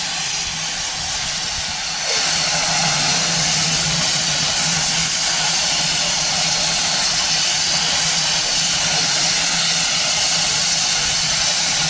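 GWR Modified Hall 4-6-0 steam locomotive No. 6960, standing with steam up and hissing steadily over a low hum. The hiss grows louder about two seconds in and then holds.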